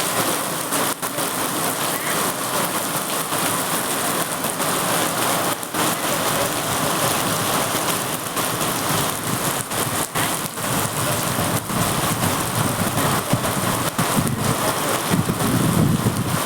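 Heavy rain falling steadily, a dense even hiss. Near the end a low rumble builds under it.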